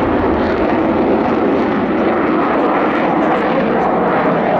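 Dassault Rafale fighter's twin Snecma M88 jet engines in flight overhead: a loud, steady jet roar.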